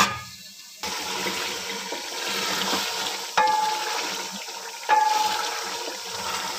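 Chicken pieces sizzling and bubbling in hot ghee in an aluminium pot. The sizzle jumps louder about a second in. A wooden spoon stirs and knocks twice against the pot, and the pot rings briefly each time.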